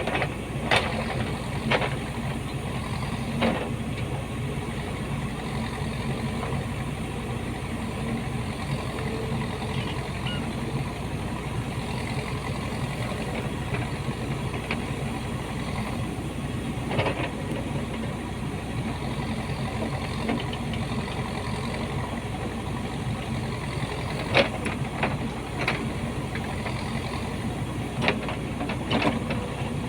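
Backhoe excavator's diesel engine running steadily as it digs, with a few sharp metallic clanks now and then.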